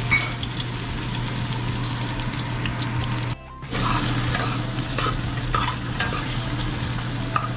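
Chopped onions sizzling as they fry in hot oil in a pot, with a few light clinks and scrapes of stirring. The sizzle cuts out briefly a little before halfway.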